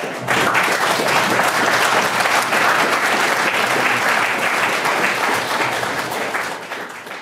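Audience applauding. The applause starts abruptly and holds steady, then tapers off near the end.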